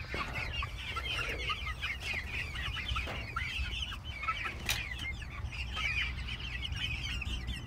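A flock of young chickens clucking and cheeping, many short high calls overlapping.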